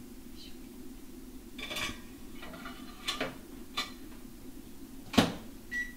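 A ceramic plate clinking and knocking as it is set inside a microwave oven, then the microwave door shutting with a sharp click about five seconds in, and a short keypad beep near the end, over a steady low hum.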